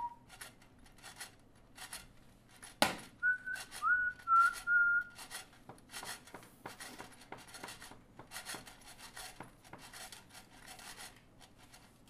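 Foley sound effects: short scraping, rubbing strokes repeating irregularly, with a sharp knock about three seconds in. Right after the knock comes a loud whistled phrase of a few held notes lasting about two seconds.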